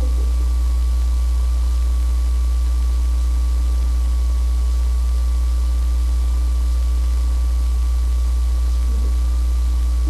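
Loud, steady low electrical hum with a thin high whine and a background hiss, unchanging throughout.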